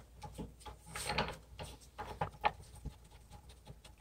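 Light handling noises from gloved hands working plastic plumbing fittings: soft rubbing and small plastic clicks as a plastic water-supply T-adapter is fitted onto the base of a toilet tank. The rustling is busiest about a second in, with a couple of sharper clicks a little after two seconds.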